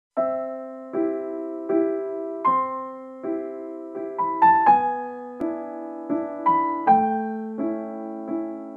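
Gentle background music on piano: soft chords struck about every three-quarters of a second, each fading away, with a short run of higher notes about halfway through.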